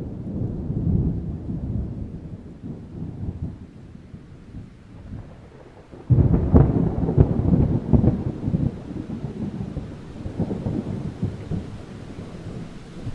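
Thunder rumbling and fading away, then a sudden loud thunderclap about six seconds in that rolls on, with another smaller swell of rumble near the end.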